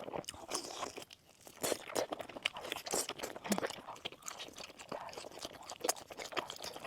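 A person eating close to the microphone: irregular crunchy bites and wet chewing, with many short sharp clicks.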